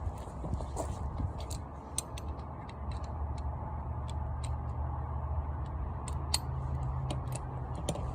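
Irregular sharp metallic clicks and ticks from a socket wrench working on the Jeep's 19 mm lug nuts to free the wheel, over a low steady hum that rises about three seconds in.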